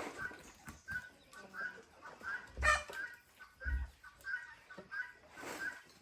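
Chickens clucking, short calls repeating every half second or so, with two low thumps about a second apart a little under halfway through.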